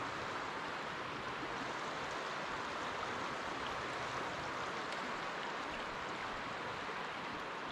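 Creek water flowing steadily over a shallow riffle, an even rushing sound.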